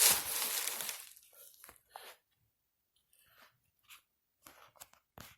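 Cardboard shipping box being torn open: a loud crunching rip that dies away about a second in, followed by scattered small rustles and taps as the packaging is handled.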